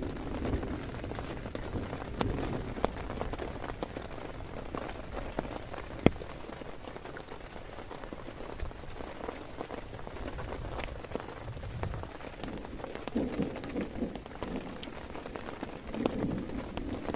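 Heavy rain falling steadily, with many small drop taps and one sharp tap about six seconds in.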